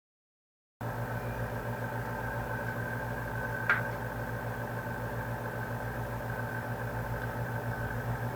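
Steady machine hum with an even, pulsing low throb and a faint steady whine, starting just under a second in, with a single sharp click a little past the middle.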